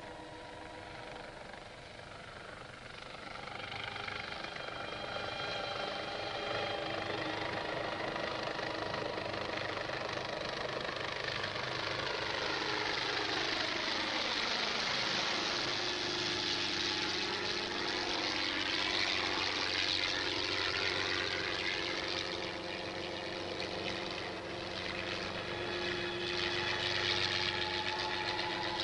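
Film soundtrack drone: a steady, engine-like hum with several held tones. It grows louder about three seconds in, and in the middle a sweep falls and then rises again.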